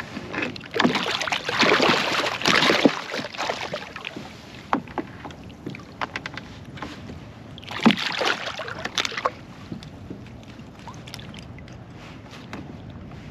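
A small striped bass splashing and thrashing in the water at the side of a canoe as it is held by the lure. There are two bouts of splashing, about a second in and about eight seconds in. Light clicks and knocks of pliers working the hooks free follow near the end.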